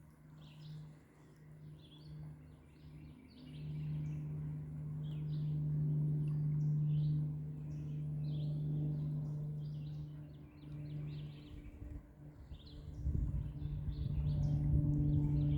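Songbirds chirping over and over, with a steady low hum that swells and fades underneath. A low rumble comes in near the end.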